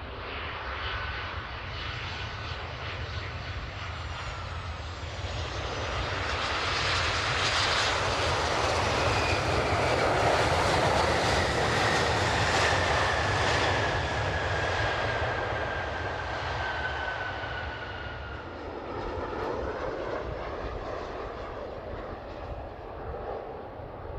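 Jet engines of a Boeing 737-800 airliner on landing approach flying past: the noise swells to its loudest about halfway through, with a whine that falls in pitch as the plane passes, then fades. A second, smaller swell of jet noise follows near the end.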